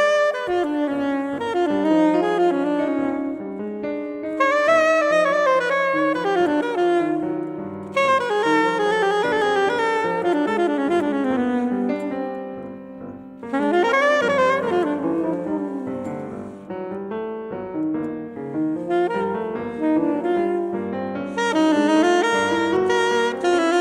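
Soprano saxophone playing melodic jazz phrases a few seconds long, accompanied by a grand piano.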